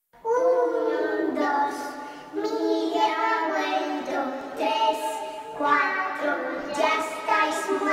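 A lone high voice singing a slow melody in long held notes, without accompaniment.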